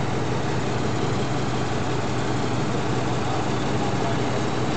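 Doosan excavator's diesel engine idling steadily, with a constant low hum.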